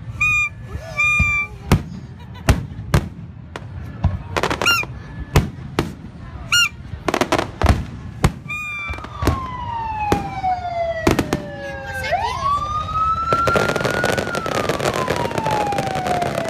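Fireworks going off in a string of sharp bangs and crackles, with a few short whistling tones near the start. From about halfway in, a police siren wails over them, sliding down in pitch, sweeping sharply back up, then sliding slowly down again.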